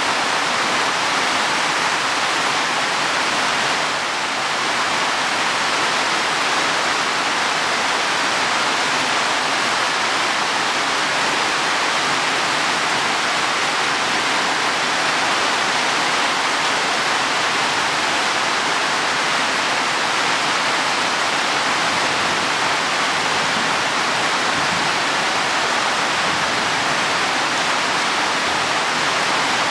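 Heavy rain falling steadily on leaves and soil, a dense, even hiss with a slight lull about four seconds in.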